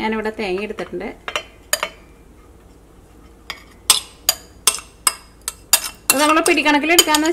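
A run of sharp clinks, about two or three a second, as a ceramic bowl is knocked against the rim of a stainless-steel mixer-grinder jar to tip grated coconut into it.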